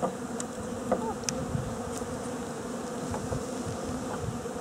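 Honeybees from a package buzzing, a steady hum, with a few faint ticks.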